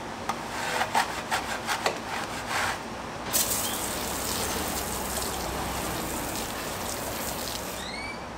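A wheel brush scrubbing a soapy car wheel in quick rubbing strokes, then about three seconds in a hand pump sprayer starts spraying onto the wheel with a steady hiss for about four seconds.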